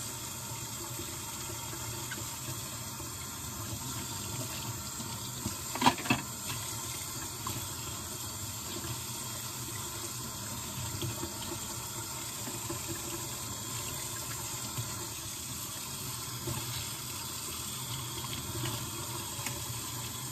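Kitchen tap running steadily into the sink while dishes are washed by hand. One sharp clink, about six seconds in, is the loudest moment.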